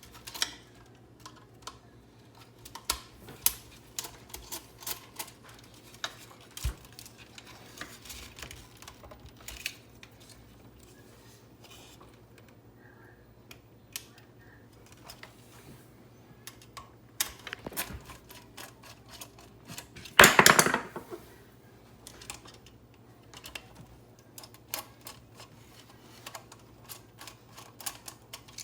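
Scattered light clicks and taps of the plastic parts and tubing of a Keurig coffee maker being handled during disassembly, with one louder clatter lasting under a second about twenty seconds in.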